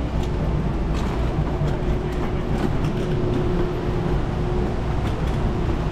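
Steady low rumble of wheels rolling over a concrete path, with a faint steady hum and scattered light clicks and rattles.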